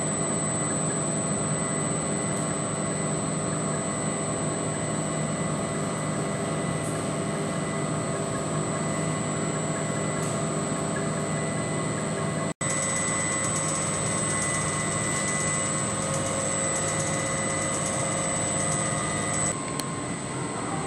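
Tape casting machine running: a steady mechanical drone of motors and fans with a thin high whine over it. The sound cuts out for a moment about twelve seconds in, then carries on the same.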